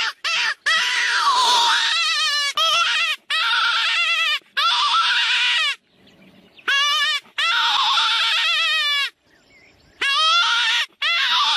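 Jackal howling: high, wavering calls with a quick quaver in pitch, several in a row with short breaks, and two brief lulls about six and nine seconds in.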